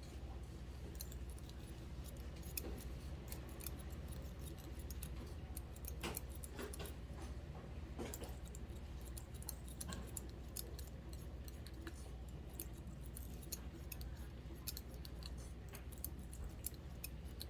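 Barber's hair-cutting scissors snipping hair in quick, irregular clicks, over a low steady hum.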